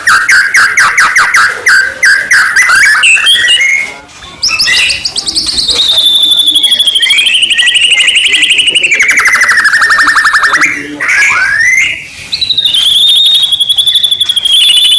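White-rumped shama (murai batu) singing a loud, continuous song of fast trills and whistled phrases that slide up and down in pitch, with brief breaks about four and twelve seconds in.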